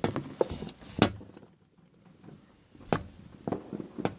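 A string of sharp, irregular pops and knocks: about seven, two small clusters near the start and another near the end, with a quiet gap in between.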